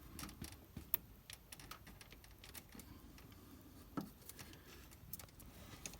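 Faint, scattered clicks and taps of fingers working small rubber seals and metal washers onto a brake pressure switch, with a sharper click about a second in and a knock about four seconds in.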